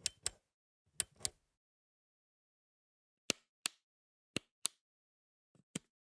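A button toggle switch clicking: four sharp double clicks, each pair about a quarter to a third of a second apart, then a softer single click near the end.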